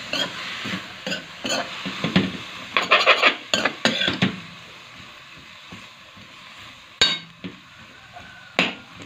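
A metal ladle stirring food in a steel karahi, scraping and clinking against the pan, over a faint steady sizzle. The stirring is busiest in the first four seconds or so, then only a few single knocks follow.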